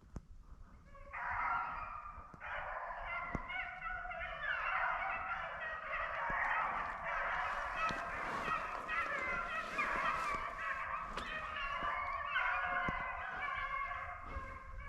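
A pack of rabbit hounds baying together in many overlapping voices, starting about a second in: the dogs are giving tongue as they run a rabbit's scent trail.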